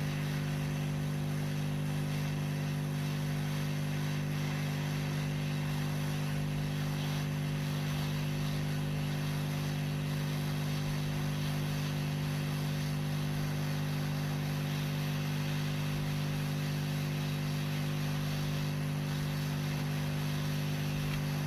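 Hot air rework station blowing steadily while heating the motherboard to change an IC: a constant fan drone with an even hiss of air.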